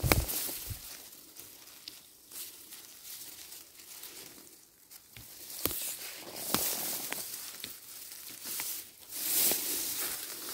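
Rustling and snapping of forest undergrowth as people move and pick among moss, grass and twigs: a loud knock right at the start, then scattered sharp snaps and rustling that swells and fades.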